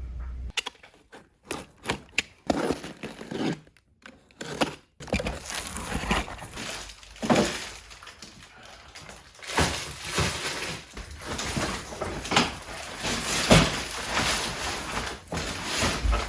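A run of irregular knocks, clatters and rustling, as of objects being handled and moved about, with a louder thump about two-thirds of the way through.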